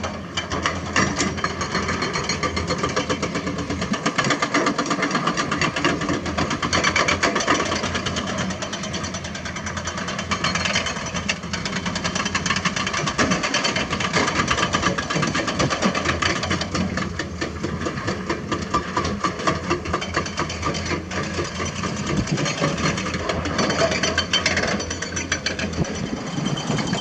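Diesel engine of heavy earthmoving equipment running steadily, with a rapid, even firing rhythm and small rises and falls in load.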